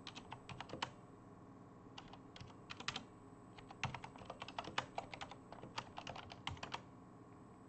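Typing on a computer keyboard: quick keystrokes in three runs, stopping about a second before the end.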